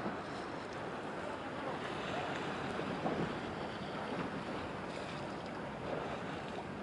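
Steady outdoor wind and water noise, with wind rushing over the microphone and waves washing.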